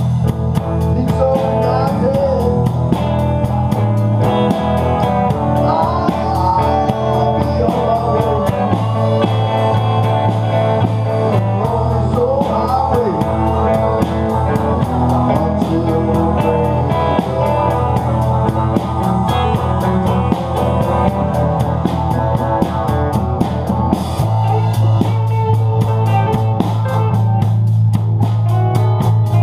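Blues band playing, an electric guitar bending notes over a steady bass line, in a poor-quality recording.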